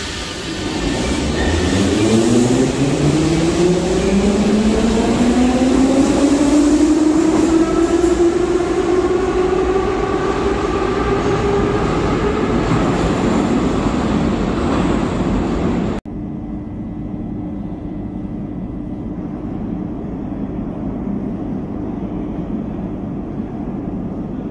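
Electric metro train accelerating away from a station: its traction-motor whine rises steadily in pitch for about twelve seconds over the rumble of wheels on rail. After a sudden cut about two-thirds of the way through, a quieter steady rumble with a faint low hum follows as a train comes into the platform.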